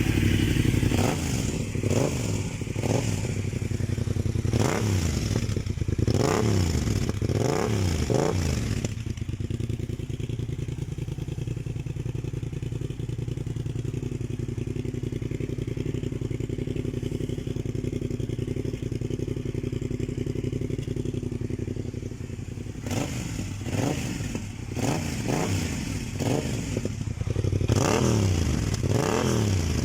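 Yamaha MT-07 first-generation 689 cc parallel-twin engine revved in a series of quick throttle blips. It then settles to a steady idle for about fourteen seconds, and near the end it is blipped repeatedly again.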